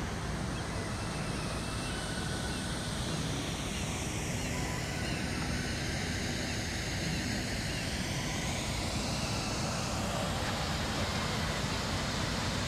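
Steady outdoor noise, a low rumble with hiss above it. Through the middle the hiss slowly sweeps down and back up.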